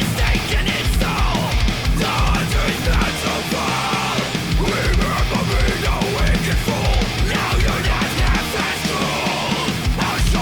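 Heavy metal song played loud, with distorted guitars over a rapid, pounding kick drum.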